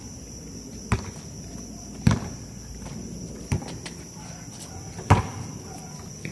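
A basketball thumping on a hard outdoor court, four single thuds spaced a second or more apart, the loudest about five seconds in. A steady high trill of insects runs underneath.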